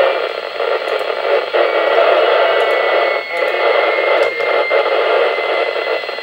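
FM radio receiver hissing on the ARISSat-1 satellite's 145.950 MHz downlink, with a faint steady tone under the noise. The noise dips briefly a few times as the signal fades, which is typical of the tumbling satellite heard on an omnidirectional antenna.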